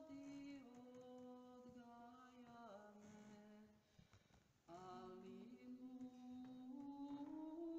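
Faint a cappella vocal chant with long held notes that glide slowly between pitches; it breaks off for under a second about four seconds in, then resumes.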